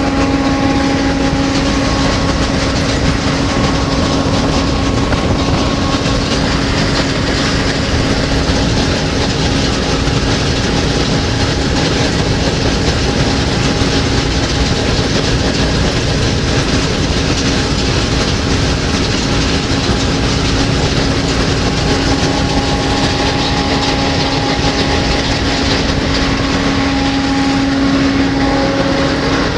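John Deere 9780i combine harvester running steadily: a constant machine drone with a steady hum held at one pitch, unchanging throughout.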